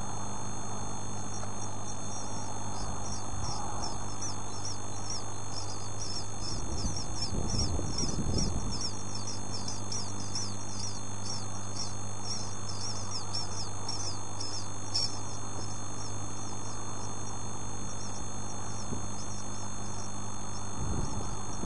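Young bird chicks cheeping: a long, quick run of short, high, falling peeps, several a second. A steady low electrical hum runs underneath.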